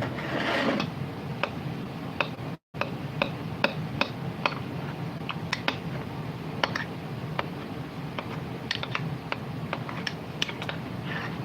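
Spoon clinking against a glass in short, irregular light taps while stirring chocolate milk and ice cream, over a steady low hum. The sound cuts out briefly about two and a half seconds in.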